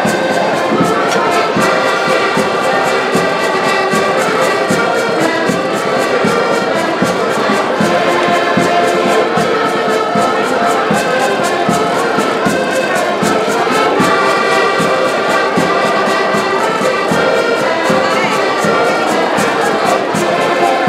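A group of piano accordions playing a tune together, with a steady beat running under it.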